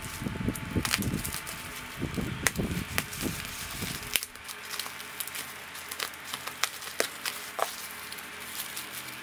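Plastic bubble wrap crinkling and crackling as it is handled and unwrapped, with scattered sharp clicks. The rustling is heavier for the first four seconds or so, then thins to lighter, sparser crackles.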